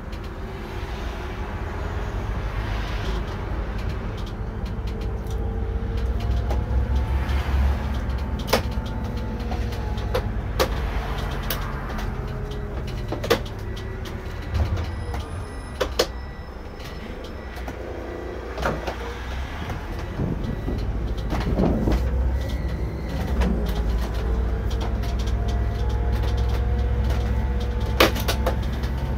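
Irisbus Récréo II coach driving, with a steady low engine and road rumble and scattered clicks and knocks of rattling fittings throughout.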